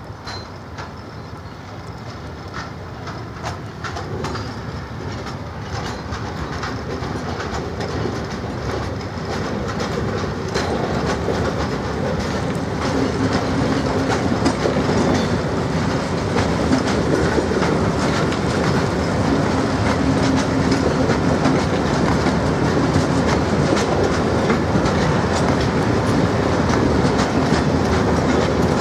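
A rake of loaded open timber wagons rolling slowly on a shunting move, wheels clattering over the rail joints, getting steadily louder as the wagons draw closer. A steady low hum underneath grows stronger about halfway through, along with a faint wheel squeal.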